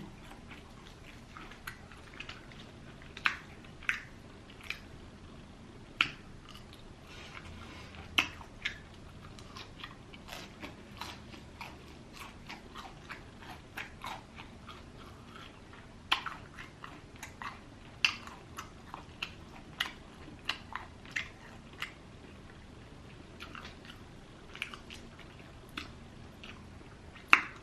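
Close-miked eating: biting into and chewing crispy Popeyes fried chicken, with irregular sharp crunches every second or so, most frequent in the second half.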